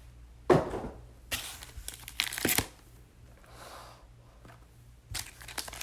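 Plastic wrapping and packaging of a trading card box crinkling and tearing as it is opened by hand, in several short rustling bursts with quieter pauses between.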